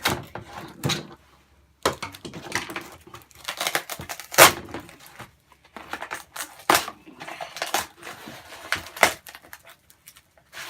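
Cardboard keyboard box being forced open and handled by hand: irregular scrapes, rustles and knocks, the loudest a sharp knock about four seconds in.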